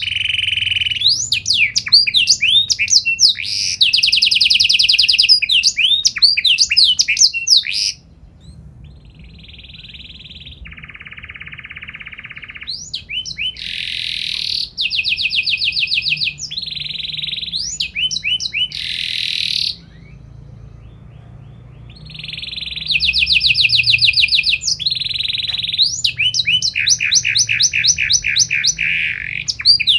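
Domestic canary singing a long, varied song of fast trills and rapidly repeated notes. It turns softer for a few seconds about a third of the way in and again about two-thirds in, then goes back to loud trilling.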